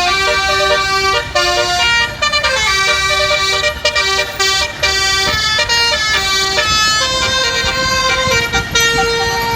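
Bus 'basuri' telolet horn playing a tune, a run of stepped, horn-like notes changing every fraction of a second, with a low rumble underneath.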